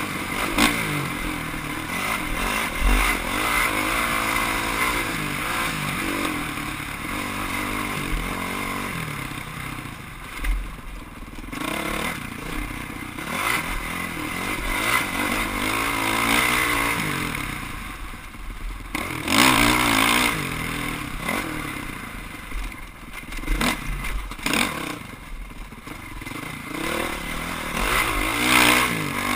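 Off-road motorcycle engine running, revving up and falling back again and again as the rider works the throttle along a trail, with occasional knocks and rattles from the bike over rough ground.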